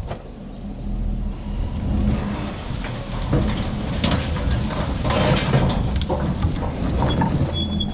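Pine brush and limbs sliding out of a tipped dump-trailer bed, with repeated cracking and clattering from about three seconds in, over a steady low motor rumble.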